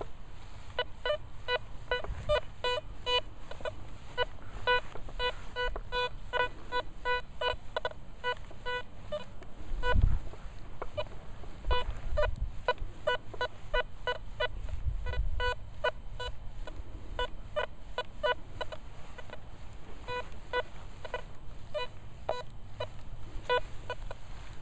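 Nokta Velox One metal detector sounding short beeps, all at the same pitch, in irregular runs of two to four a second as the search coil is swept. A dull low thump about ten seconds in.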